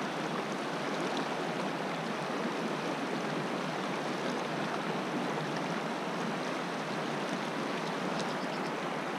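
Shallow mountain river rushing steadily over rocks in a riffle: a continuous, even rush of water.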